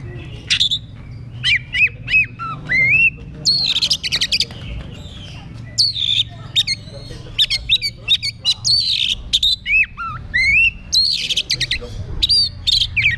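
Oriental magpie-robin singing loudly in a fast, varied run of rising and falling whistles broken by harsh, buzzy notes.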